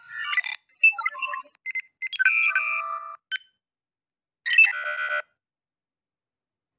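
Star Trek: The Next Generation LCARS computer sound effects played one after another: a chord of steady electronic tones that cuts off about half a second in, a run of short chirping computer beeps from about one to three seconds in, and a brief chiming tone burst about four and a half seconds in.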